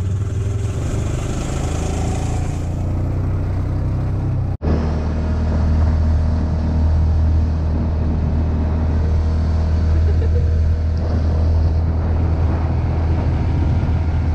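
Side-by-side utility vehicle's engine running steadily as it drives over grass and sand, a constant low drone. The sound breaks off for an instant about four and a half seconds in.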